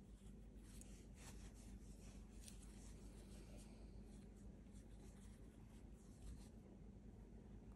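Faint, irregular scratching and rubbing of a metal crochet hook pulling acrylic DK yarn through half double crochet stitches, over a low steady hum.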